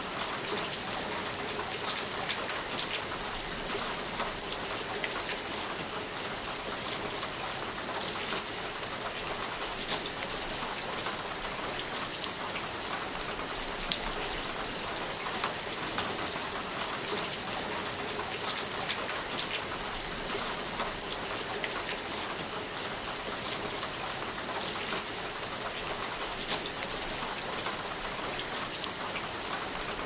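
Steady rain falling: an even, constant hiss with scattered sharper drop taps.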